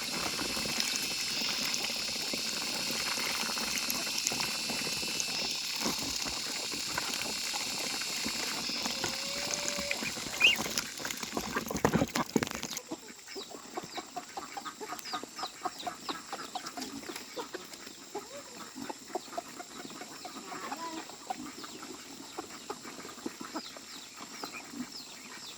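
Farmyard sounds: a steady hiss that cuts off suddenly about halfway through, then scattered ticks and clicks with fowl clucking.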